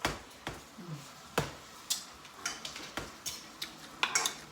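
Irregular sharp clicks and clinks of kitchen utensils and dishes being handled, about eight in all.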